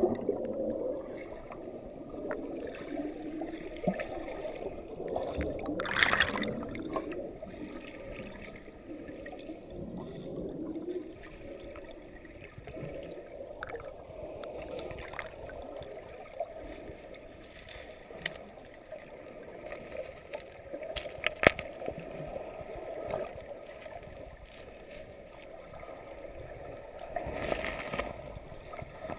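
Rushing creek water heard underwater: a steady low churning and gurgling from rapids pouring into the pool. A few sharp clicks and knocks stand out, the loudest about two-thirds of the way through.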